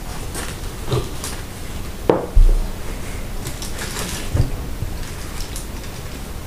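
Tabletop handling noises while eating: light clicks and faint rustling of paper and foil wrappers, with a sharp knock and then a dull thump on the table about two seconds in.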